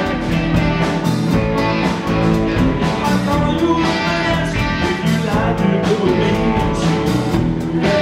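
A live blues band playing an amplified song, with electric guitar prominent.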